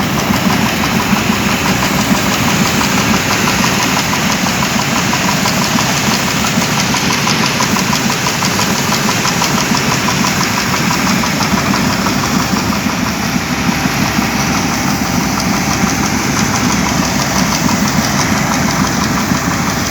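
Massey Ferguson 780 combine harvester running steadily while harvesting wheat, its engine note even and unbroken.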